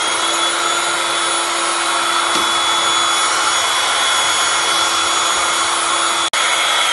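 Small electric air pump running steadily as it inflates a balloon: a loud rush of air under a steady motor whine. It drops out for an instant near the end.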